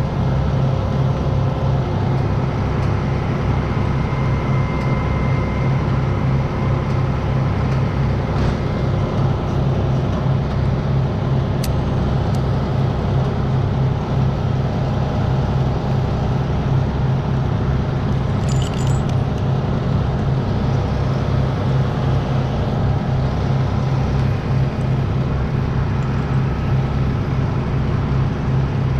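Engine of the crane truck running steadily at a constant speed, a low, evenly pulsing drone. A couple of short metallic jingles from climbing hardware come about a third and two-thirds of the way through.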